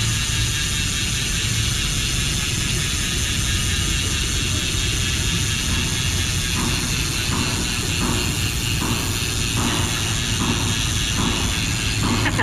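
Mountain-bike rear hub freewheeling: the pawls of a Weapon Paver five-pawl freehub ratcheting in a steady buzz, which about halfway through turns into separate bursts of clicks roughly twice a second.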